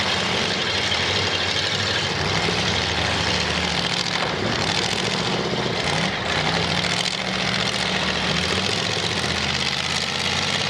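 Engines of full-size demolition derby cars running hard in the arena, a couple of times rising in pitch as they rev, over a steady noisy wash.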